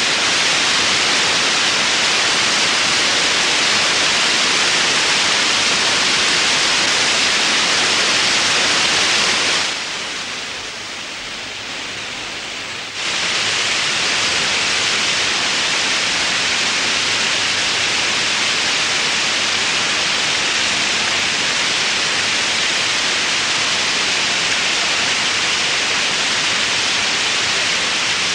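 Loud, steady hiss of static noise with no pattern in it, dropping to a lower level for about three seconds partway through before returning.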